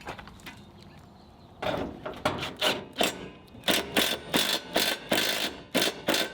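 A hand tool worked in quick repeated strokes, about two to three a second, starting about a second and a half in.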